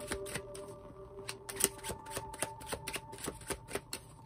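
Deck of tarot cards being shuffled by hand: an irregular run of quick card taps and flicks, several a second.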